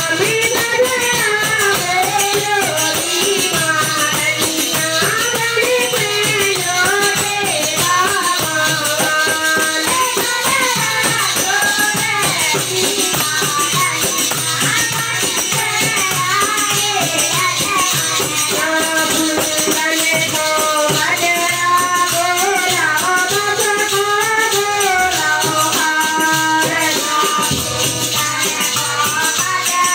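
Group folk singing to a harmonium, with small brass hand cymbals jingling steadily throughout.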